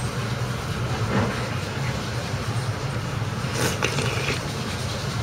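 Steady low hum of room background, with a few faint short knocks, the clearest about three and a half seconds in.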